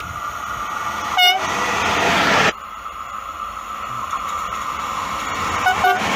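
Electric locomotive-hauled trains sounding short horn blasts as they approach and pass. A brief horn toot about a second in over the rising rush of the train, which cuts off abruptly; then another train's approach builds, with two short horn toots near the end.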